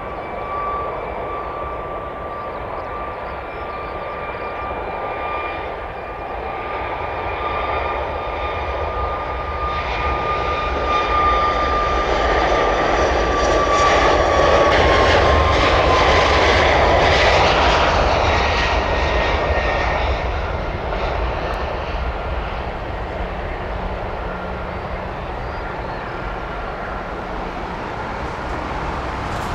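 Airbus A320 jet engines whining at low power as the airliner taxis past. A steady high whine over a rumble grows louder about halfway through and drops slightly in pitch as the aircraft goes by, then fades a little.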